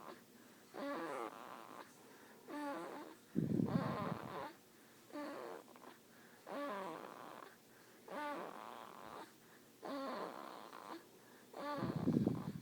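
A sleeper snoring in short, pitched breaths about every second and a half. Two longer, louder, deeper snores come about three and a half seconds in and again near the end.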